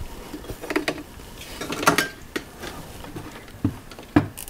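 A few light clicks, knocks and clinks of small objects being handled on a workbench, scattered irregularly, with one cluster a second or two in and two single knocks near the end.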